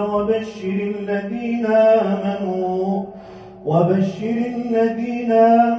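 An imam's melodic Quran recitation: one man's voice chanting long, drawn-out notes, with a short pause for breath about three seconds in.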